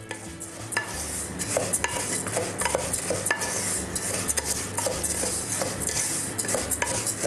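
Wooden spatula stirring and scraping basmati rice around a metal pot, with irregular knocks and scrapes against the pot. Under it is a steady sizzle: the unsoaked rice is heating in oil before hot stock is added.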